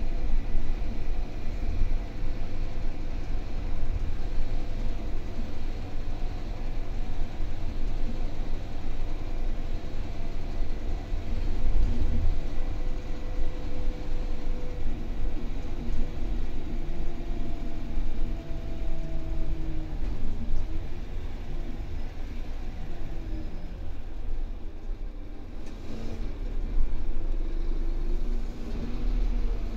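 Scania K320UB bus's five-cylinder diesel engine and road rumble heard inside the passenger saloon, with engine tones rising and falling as the bus changes speed. It goes somewhat quieter a little after two-thirds of the way through, then picks up again near the end.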